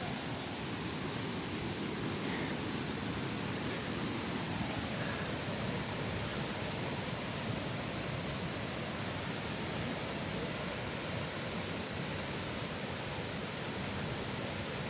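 Waterfall: falling water rushing with a steady, unbroken noise.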